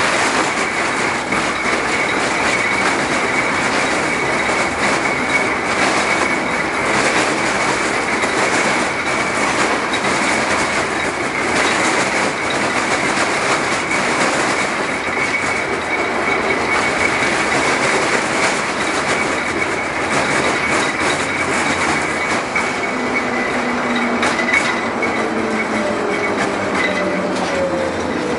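LM-68M tram running along the line, heard from inside the car: a steady rumble and rattle with clicks over the rail joints and a thin wheel squeal. Near the end, a motor whine falls in pitch as the tram slows.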